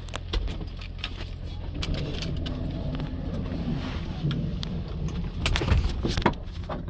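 A car engine running with a steady low rumble, with scattered clicks and knocks over it.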